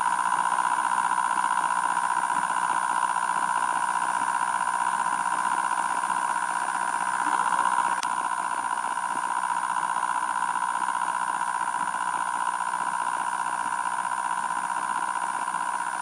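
Homemade pulse motor with a magnet rotor, ferrite-core coil and reed switch running steadily: an even, high-pitched whine that holds one pitch throughout.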